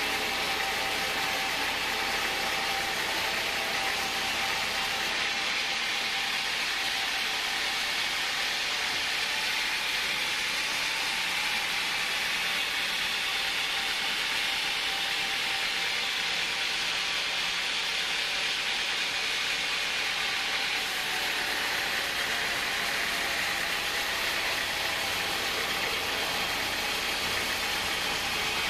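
Sawmill band saw running and cutting lengthwise through a large hardwood log on a rail carriage: a steady, even rush of blade-and-motor noise with a faint steady hum underneath.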